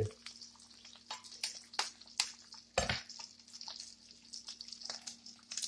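Eggs frying in butter in a nonstick pan: faint sizzling with scattered crackles, over a faint steady hum. One louder knock sounds about three seconds in.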